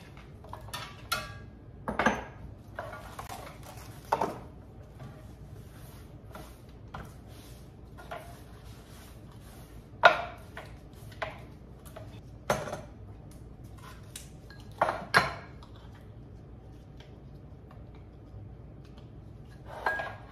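Mugs, jars and canisters being set down and shifted on a wooden tray and granite countertop: scattered clinks and knocks, the loudest about halfway through.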